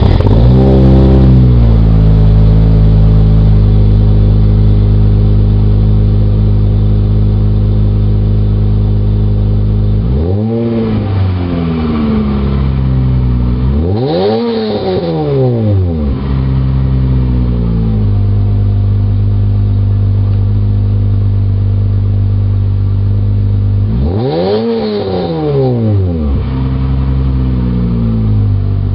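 Exhaust of an Acura TL (UA5) 3.2-litre V6, just started: its revs drop from a flare into a steady idle in the first two seconds. It is then revved three times, a quick blip about ten seconds in, a higher rev around fourteen seconds and another blip around twenty-four seconds, each falling straight back to idle.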